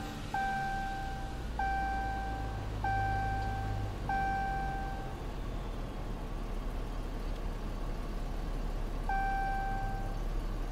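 A Dodge car's dashboard warning chime sounding as the ignition is switched on: one long steady tone four times about every second and a quarter, then once more near the end, over the low steady hum of the car running.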